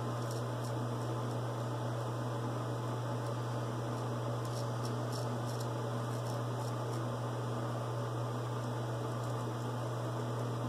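A steady low electrical hum, with faint short scrapes of a straight razor (Stallion's Edge GD66) cutting lathered stubble across the grain, a few strokes at a time.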